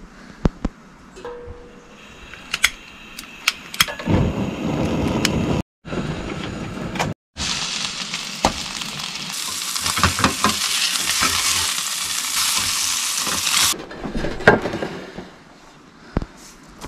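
A burger patty and a sausage frying in a stainless steel pan: a steady sizzle for several seconds that cuts off abruptly. Before it come scattered clicks and knocks of food and utensils being handled.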